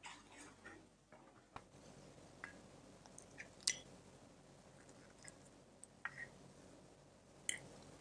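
Quiet, scattered clinks of a metal fork against a ceramic plate as a soft slice of cake is cut and a bite is picked up, the sharpest clink about three and a half seconds in.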